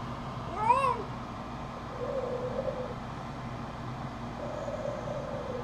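Baby making wordless vocal noises: a short squeal that rises and falls about a second in, then two drawn-out, level, high-pitched hums.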